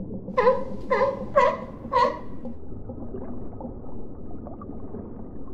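Sea lion barking four times in quick succession, about two barks a second, over a steady low background rush.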